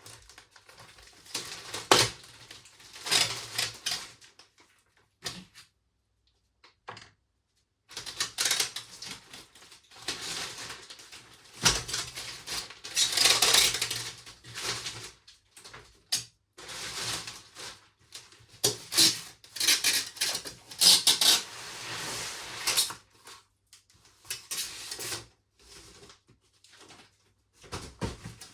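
Irregular handling noises: rustling, scraping and clicking, with short pauses, as packaging is pulled off and handled.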